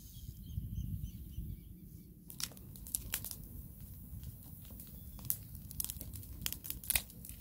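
Eucalyptus-wood fire crackling with scattered sharp pops, over a low wind rumble on the microphone. Faint bird chirps come before the crackling starts about two seconds in.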